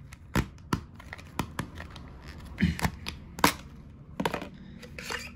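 Clear plastic packaging crinkling and clicking as a metal muzzle brake is pulled out of its plastic tube case, with a run of irregular sharp clacks and crackles.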